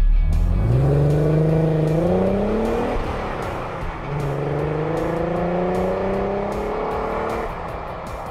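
Race-car engine sound effect revving up twice, each run rising steadily in pitch and then dropping off.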